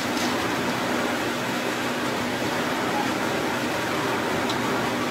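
Steady hum and hiss of workshop machinery or a fan, with a faint steady low tone under it and a couple of faint light clicks, one just after the start and one near the end.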